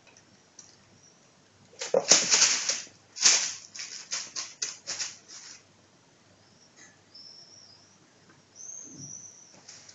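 Plastic bag rustling and crinkling in a run of quick bursts as a kitten plays in it, loudest about two seconds in, then quieter with a few faint rustles near the end.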